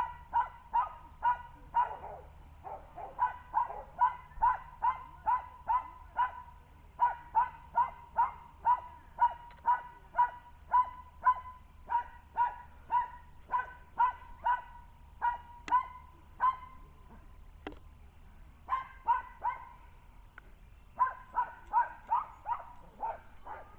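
A dog barking over and over in a steady run of sharp barks, about two to three a second, with a couple of short breaks about two-thirds of the way through.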